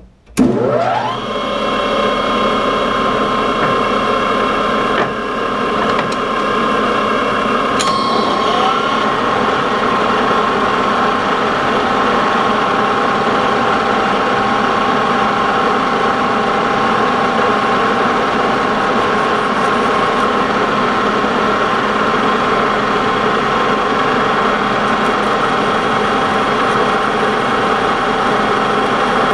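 Lodge & Shipley metal lathe switched on, its drive winding up in pitch over about a second, then running steadily with a gear whine while a small boring bar takes a light cut in the bore. A couple of clicks and a change in tone come about six to eight seconds in.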